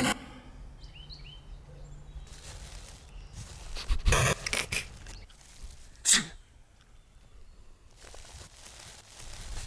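Cartoon sound effects: a short, pitched, voice-like burst about four seconds in and a sharp, brief burst near six seconds, between quiet stretches.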